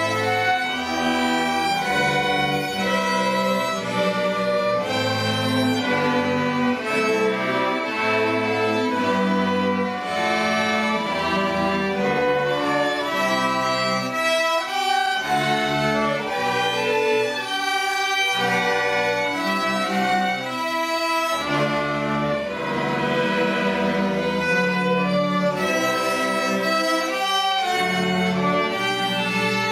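Student string orchestra of violins, cello and double basses playing a piece together, the bowed notes changing steadily with no pause.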